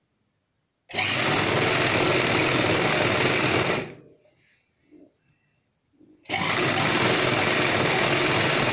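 Chauhan sewing machine stitching in two runs of about three seconds each, with a short pause between them while the fabric is repositioned. It is sewing the folded waistband of a churidar pajami.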